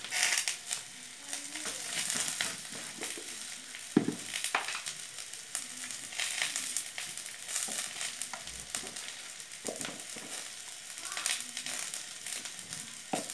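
Boiled potatoes and green peas sizzling in hot oil in a metal kadai, with a steel spatula scraping and knocking against the pan now and then; a sharp knock about four seconds in is the loudest sound.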